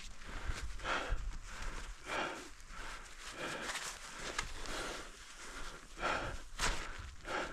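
A snowshoer breathing hard in a quick, even rhythm of puffing breaths, about one and a half a second, with snowshoe steps in snow.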